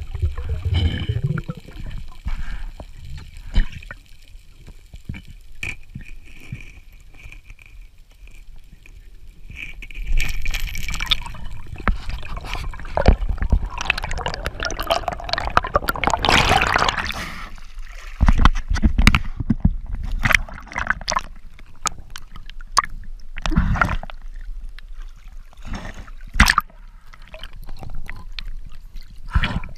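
Underwater sound picked up by a diver's camera: gurgling and sloshing water and bubbles over a low rumble, with scattered sharp clicks and knocks. A louder hissing, bubbling stretch comes about halfway through.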